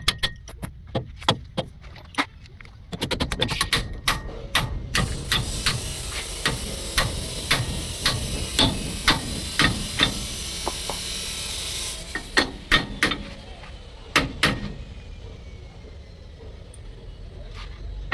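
Hammer blows on metal, many sharp strikes at uneven spacing, during work on a truck's king pins. A steady hiss runs from about five to twelve seconds in.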